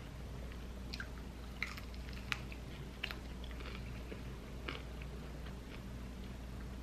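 Close-miked mouth sounds of a person eating a buffalo chicken wing: chewing with scattered short crunches and wet clicks, the sharpest a little over two seconds in, over a steady low hum.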